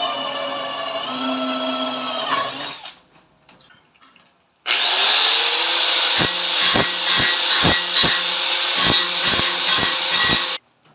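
Electric power tool running in two bursts. The first lasts about three seconds and its pitch shifts partway through. After a pause the motor spins up with a rising whine and runs steady for about six seconds, with regular knocks about twice a second.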